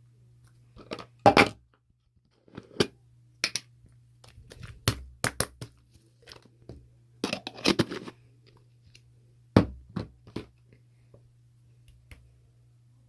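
Irregular bursts of close crunching and crackling, in clusters separated by short pauses, over a steady low electrical hum.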